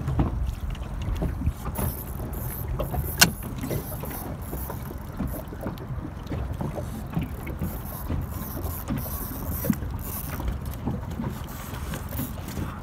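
Wind buffeting the microphone over small waves lapping and slapping against an inflatable boat's tube, with a single sharp click about three seconds in.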